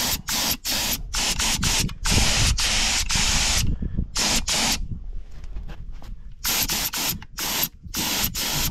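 Gravity-feed air spray gun spraying paint in short, repeated bursts of hiss as the trigger is pulled and released, with one longer pass about two seconds in and a pause of over a second around the middle.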